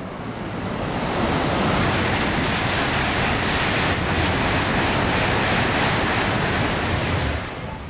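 Tohoku Shinkansen E5 series train passing non-stop through the station at high speed: a loud rush of air and wheels that builds over the first second, holds steady, then falls away suddenly about seven seconds in as the train clears.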